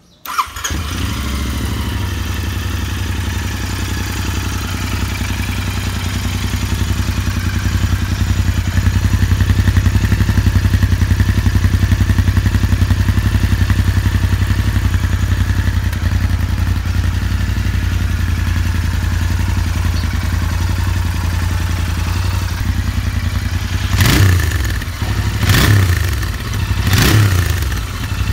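Royal Enfield Interceptor 650's parallel-twin engine starting at once and settling into a steady idle. Near the end the throttle is blipped three times in quick revs, about a second and a half apart, heard from its stock chrome silencer.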